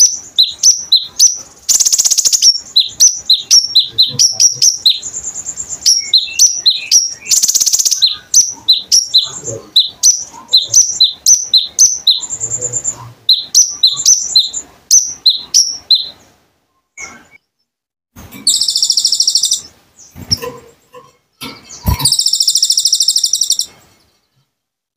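Konin songbird singing: a fast run of high, sharp chirps several a second, then, after a short pause, two loud harsh buzzing bursts of a second or two each.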